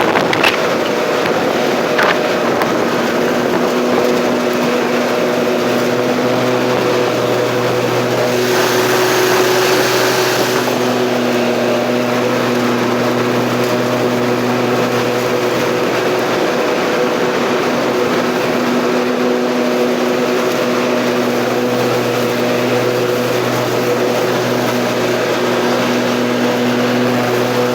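Bad Boy MZ Magnum zero-turn mower running steadily with its 54-inch deck's blades engaged while mowing. About nine seconds in, a brief hiss rises over the engine for a couple of seconds.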